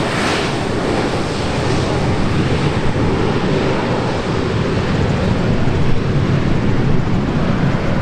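Learjet 60 business jet's turbofan engines rumbling as it rolls out along the runway after landing. The high hiss fades in the first second as the jet moves away, over steady wind buffeting the microphone.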